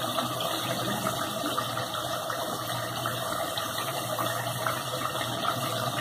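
Chicken curry masala frying in oil in a pot, sizzling steadily with fine crackles; the oil has already separated from the masala as it is fried down.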